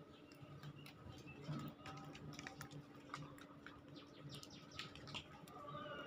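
Faint bird chirps outdoors, scattered among many light ticks, over a low steady hum.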